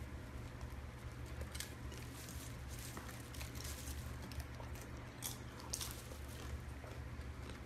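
Golden retriever chewing popcorn: scattered soft crunches and clicks over a steady low hum.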